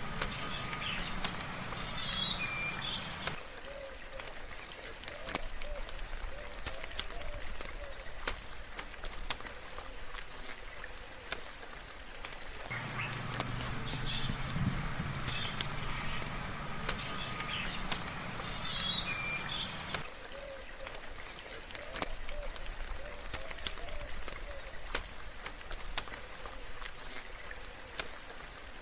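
Soft rain falling, with drops ticking over a steady hiss, while birds chirp in short high calls and some lower calls answer. The same few seconds of birdsong come round again and again.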